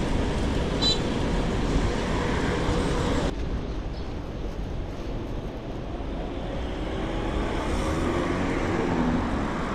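Road traffic noise heard from a moving bicycle on a city street: cars running past, with a steady low rumble. About three seconds in, the sound changes abruptly and turns quieter and duller.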